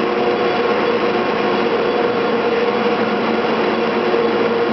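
Cable car winding machinery running: electric drive motors turning the big sheaves that haul the moving cables under the streets, a steady mechanical hum with a few held tones and no change.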